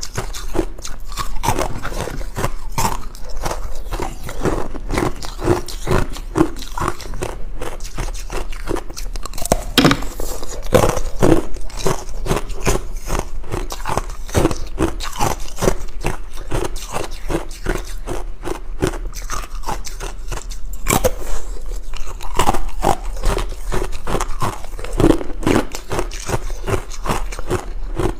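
A person biting and chewing ice cubes close to the microphone: continuous crunching and cracking, with sharper, harder bites about ten and twenty-one seconds in.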